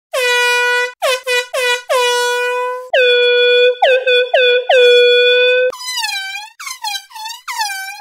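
Air horn sound effect in digitally altered versions, sounding a string of blasts: a long blast, several quick short ones, then longer held blasts. From about six seconds in it changes to short honks that swoop down and back up in pitch.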